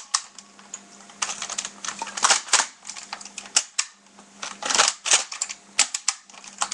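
Plastic Nerf blaster being worked by hand: irregular clicks and clacks as its priming slide is pulled back and pushed forward, with a few longer rattling clacks about two and five seconds in.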